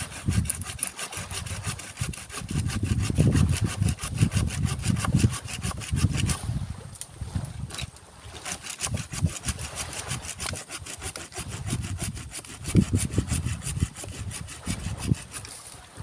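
Saw cutting through santigi (Pemphis acidula) wood in quick, even strokes.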